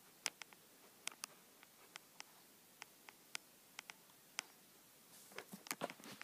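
Handling noise from plush toys being moved by hand: about a dozen sharp clicks and taps at uneven intervals, then a short flurry of rustling and knocks near the end.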